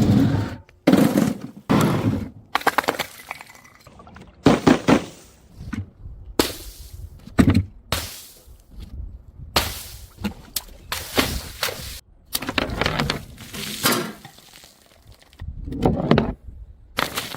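Glass bottles smashing one after another, about a dozen impacts, each followed by the jingle of shards scattering.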